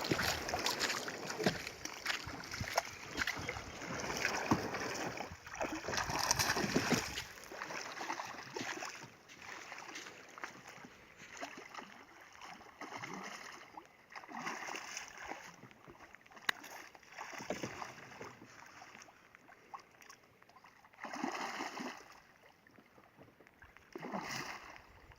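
Water splashing and sloshing around a small boat, busiest for the first several seconds, then scattered separate splashes with a few sharp clicks.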